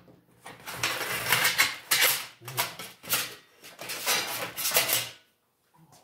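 Cardboard box and packing rustling and scraping as a digital readout's long scale and loose parts are lifted and shifted in it. A run of irregular rustles and light knocks that stops about five seconds in.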